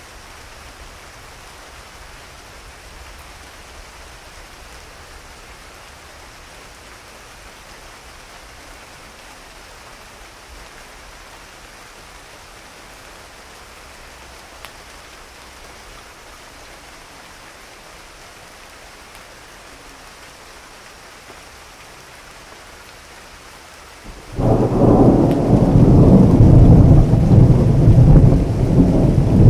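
Steady rain falling, then near the end a sudden, loud clap of thunder breaks in and keeps rumbling deeply.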